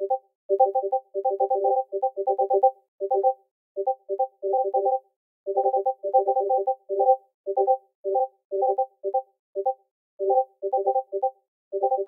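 Discord message notification ping played over and over, each a short electronic blip on the same few low notes. The pings come in rapid, uneven clusters, several a second, with brief silent gaps between them.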